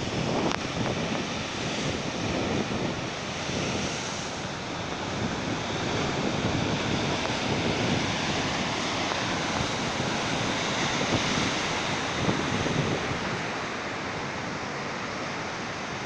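Rough sea surf breaking and washing over rocks, a steady rushing noise with no let-up, with wind buffeting the microphone.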